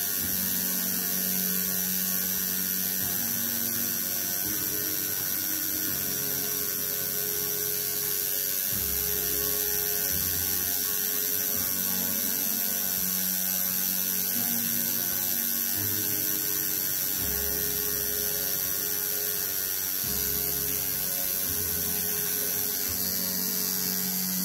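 Home-rebuilt coil tattoo machine with a single needle buzzing steadily while lining lettering into skin. Its low pitch shifts every second or two.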